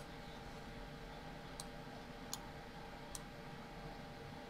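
Computer mouse clicking, a few sharp single clicks spaced less than a second apart, over a faint steady hum.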